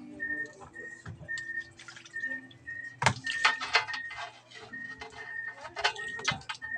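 Wet splashing and squelching of small tamban (sardinella) being gutted and rinsed by hand in a metal basin of water, with a sharp splash about three seconds in.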